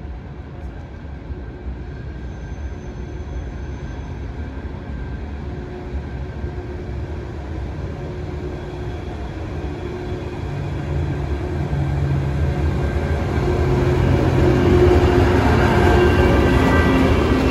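Trenitalia E414 electric locomotive hauling an Intercity train into the station along the platform, its running growing steadily louder as it nears and passes close by. A steady hum rises over the wheel rumble about ten seconds in.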